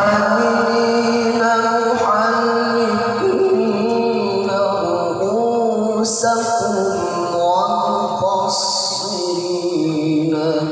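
A male Qur'an reciter chanting in the melodic tilawah style, holding long notes with wavering ornaments and moving slowly between pitches.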